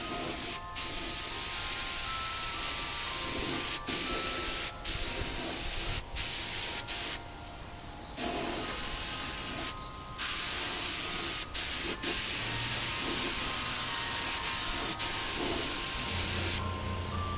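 Paint spray gun laying on silver metallic paint in passes, hissing in stretches of one to a few seconds with short breaks as the trigger is let off. The hiss stops about a second before the end, leaving a low steady hum.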